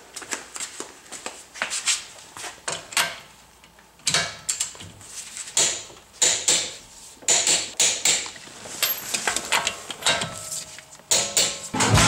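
Torque wrench being worked on a car wheel's lug nuts, tightening them to 95 foot-pounds: a string of irregular sharp clicks and knocks, a few a second.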